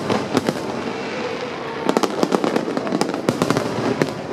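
Aerial fireworks going off: a continuous crackle with many sharp bangs of bursting shells at irregular moments, thickest about two seconds in.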